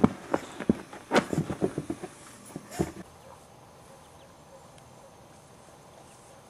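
Boxer puppies scuffling and bumping against the microphone, a rapid run of close knocks and thumps. About three seconds in this gives way to a quiet, steady outdoor background.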